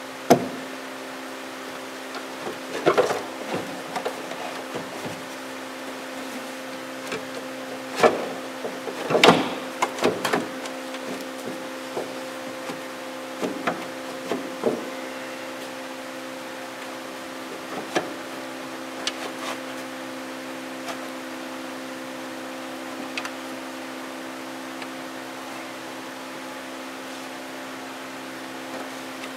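Scattered clicks and knocks of a socket wrench and parts being handled while the windshield wiper arm and cowl trim are refitted, over a steady hum. A cluster of sharper knocks comes about 8 to 10 seconds in.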